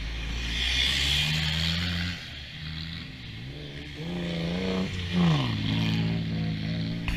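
Off-road racing buggy engines revving on a muddy track. The engine pitch climbs and falls as the throttle opens and closes, with a quick drop in revs about five seconds in as the nearer buggy comes up the course.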